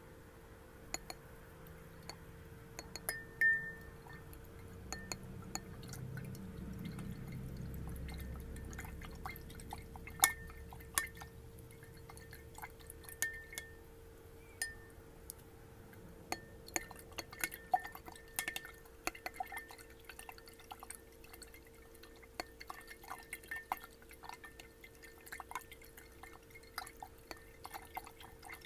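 A glass tapped over and over in an irregular pattern: light clicks, some ringing briefly at one pitch, with water sounds from the glass. The water is heard mostly as a soft swell in the first third.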